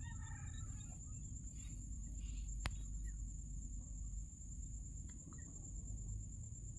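Faint background noise between narrated lines: a steady low hum under a steady high-pitched whine, with a few faint short calls in the first second and a single sharp click a little under three seconds in.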